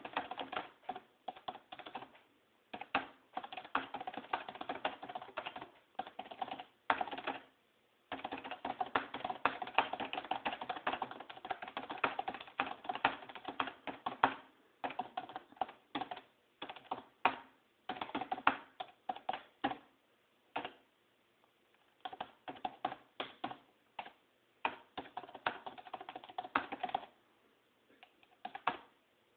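Fast typing on a keyboard: rapid runs of key clicks broken by a few short pauses.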